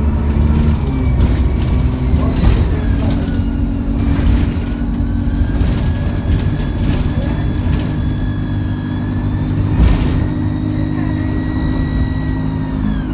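ADL Enviro200 bus engine running under way with a high-pitched turbo whine: thin whistling tones slide down over the first few seconds, then a lower whine rises and holds before falling away near the end. Several knocks and rattles from the bus body, the loudest about ten seconds in.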